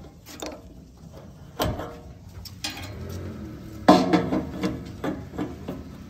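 A few sharp metallic clanks and clicks as the fuel cap comes off a backhoe's fuel tank and a diesel pump nozzle goes into the filler neck. The loudest clank comes about four seconds in.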